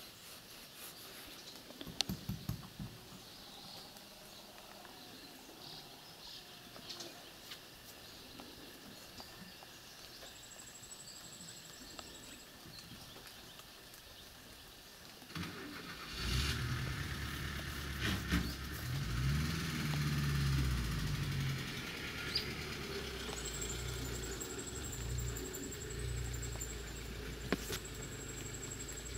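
A UAZ-452 van's engine starts about halfway through and keeps running steadily, its pitch wavering briefly a few seconds after it catches.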